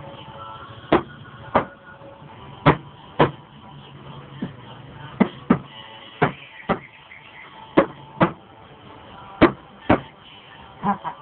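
A series of about a dozen sharp knocks or clicks at uneven intervals, half a second to a second and a half apart, some in quick pairs.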